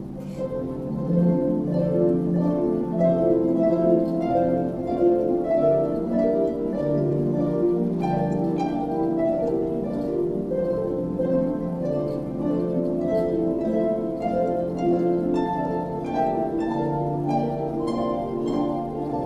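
An ensemble of harps, both large pedal harps and smaller lever harps, playing a piece together: a continuous flow of plucked notes and chords, the strings ringing on into one another.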